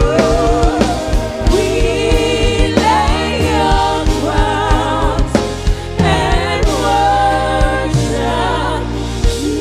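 Live gospel worship music: voices sing long, wavering, melismatic notes over a band accompaniment.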